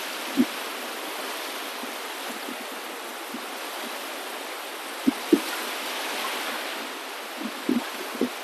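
Steady rushing of water, with a few short low knocks or plops: one about half a second in, two about five seconds in, and a couple near the end.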